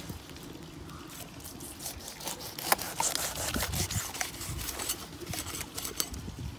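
A cleaver chopping fish on a wooden stump block: a run of irregular knocks of the blade through fish into wood. They are sparse at first, with one sharp knock nearly three seconds in, then come more often.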